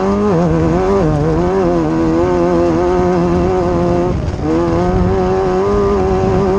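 Off-road race vehicle's engine running hard at high revs, its pitch wavering with the throttle. The revs drop briefly about four seconds in, then pick back up and hold steady.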